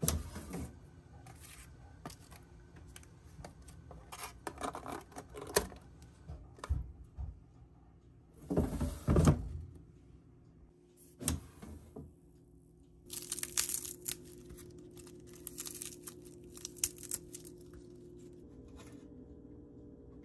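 Kitchen handling sounds at an air fryer: the basket drawer slid on its rails with clicks and knocks, and a longer scraping rush about halfway through. Later come the crinkle and rattle of a foil tray and the clicks of wooden tongs.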